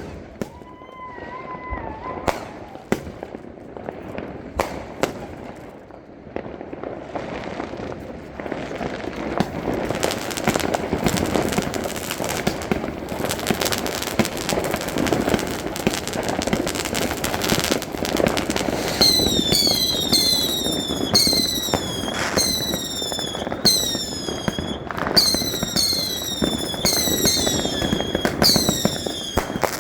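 Small consumer fireworks going off. There are scattered sharp pops at first, then a dense crackle from about a third of the way in. From about two-thirds through comes a rapid run of short whistles, each falling in pitch, one after another.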